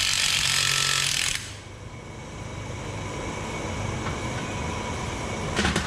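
Cordless impact wrench hammering on a puller's forcing screw for about a second and a half, driving the puller to pull a pulley off the combine's separator gearcase shaft, then stopping abruptly. A short metallic clank comes near the end.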